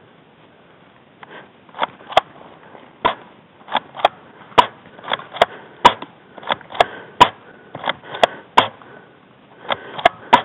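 Airsoft guns firing single shots in an exchange of fire: sharp pops at irregular intervals, about two a second, starting about a second in.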